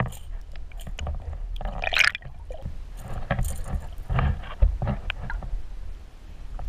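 Underwater sound picked up by a Water Wolf camera on a fishing line: a steady low rush of water past the housing, broken by irregular knocks and short splashy bursts, the strongest about two seconds in, while a fish strikes and thrashes at the lure.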